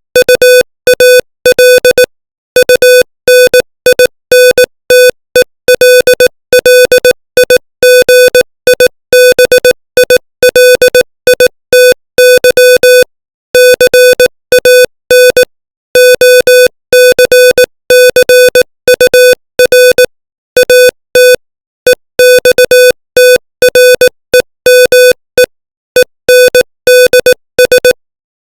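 Morse code sent at 18 words per minute: a buzzy beep of about 500 Hz keyed on and off in short dots and longer dashes, with brief gaps between letters and longer pauses between words.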